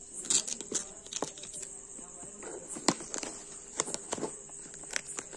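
Hands handling and pulling at a taped cardboard shipping box: irregular crackles, scrapes and sharp clicks of cardboard and packing tape, the loudest snaps near the start and about three seconds in.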